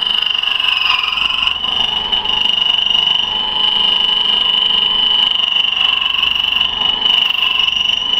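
Key-cutting machine's cutter wheel cutting a duplicate key: a loud, steady, high-pitched whine held throughout.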